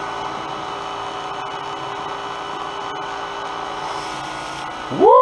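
Professional cotton candy machine running: the motor spinning the sugar head gives a steady whirring hum with a few held tones. Just before the end a short, loud tone sweeps up and back down, louder than the machine.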